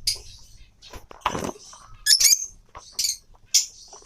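Caged lovebirds calling: several short, high-pitched chirps, with one longer, harsher squawk about a second and a half in.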